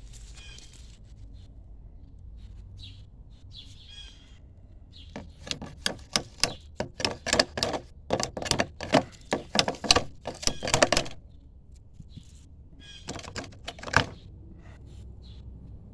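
A rapid, irregular run of sharp knocks and clicks lasting about six seconds, then a few more ending in one sharp knock, from the loosened handrail spindles and rail being worked by hand. Birds chirp faintly near the start.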